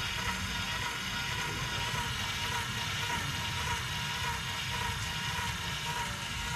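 Motor drive of an automated fishing-rod casting mechanism running steadily as it slowly winds the casting arm back to load a cast.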